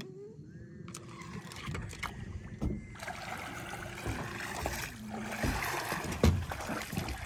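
Steady low hum on a boat with scattered knocks, growing noisier and louder over the second half.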